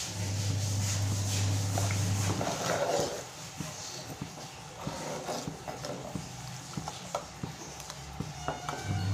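Steel ladle stirring thin kadhi batter of buttermilk and gram flour in a metal pot, with irregular clinks and scrapes of the ladle against the pot, kept moving so the kadhi does not stick and burn at the bottom. A low steady hum runs through the first two seconds.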